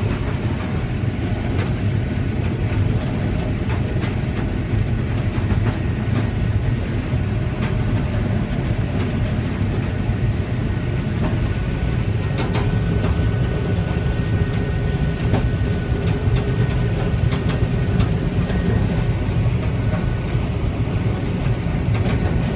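Farm harvest machinery running steadily during corn harvest: a loud, low, unbroken drone with scattered rattles and clicks throughout.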